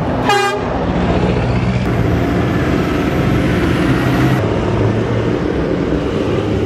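Diesel engines of a Scania lorry and then a Massey Ferguson tractor driving past close by, with a short horn toot about half a second in.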